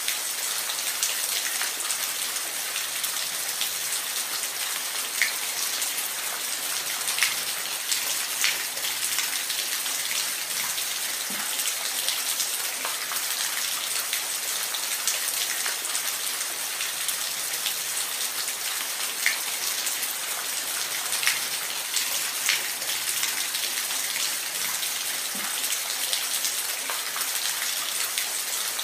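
Steady rain falling in a forest: a dense, even hiss with occasional louder single drops ticking nearby.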